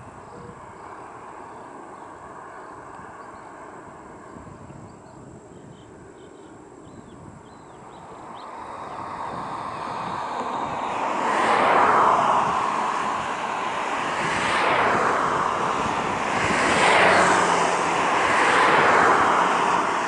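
Boeing 747-400's four Rolls-Royce RB211 turbofan engines at departure power, growing steadily louder from about eight seconds in, then swelling and fading in waves.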